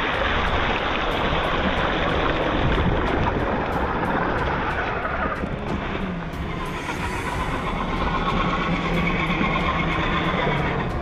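Radio-controlled DF Models DF4S Toyota 4Runner scale crawler driving through muddy water and gravel: its electric motor and drivetrain run while the tyres splash and churn through mud, with a low steady motor hum in the second half.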